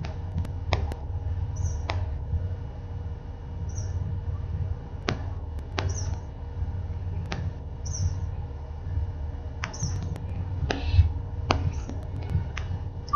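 A low rumbling noise with scattered sharp clicks, and a bird chirping short high notes about every two seconds.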